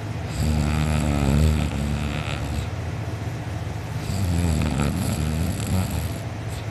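A sleeping person snoring loudly: two long snores, one starting about half a second in and another about four seconds in.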